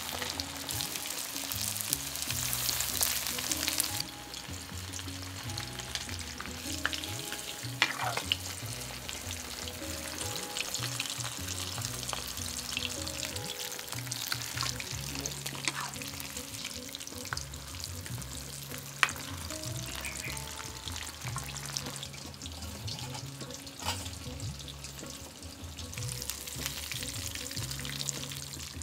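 Fish deep-frying in hot oil, a steady sizzle that is heaviest in the first few seconds and then settles, with a few sharp clicks along the way.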